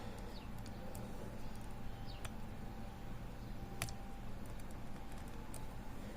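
Faint, sparse metallic clicks of a disc-detainer pick working the rotating discs inside a Bumper disc lock, a few isolated ticks spaced a second or more apart.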